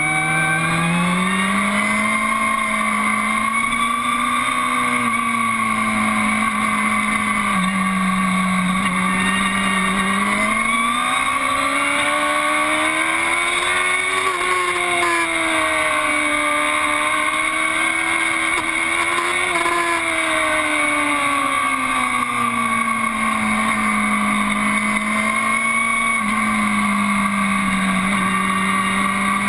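2012 Aprilia Tuono APRC's V4 engine running hard at speed, its revs rising and falling smoothly as the bike is ridden through a run of bends, with wind noise over it.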